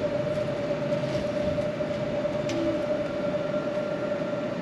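Steady mechanical drone: one constant tone over an even rushing noise, unchanging throughout.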